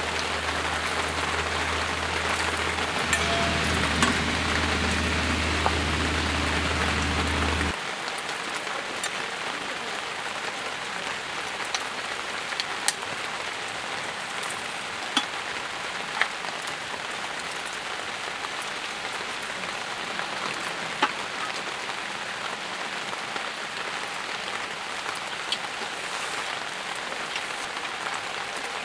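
Steady rain falling, with single drops tapping sharply close by. A low steady hum runs under it for the first eight seconds or so and stops abruptly, where the rain also turns quieter.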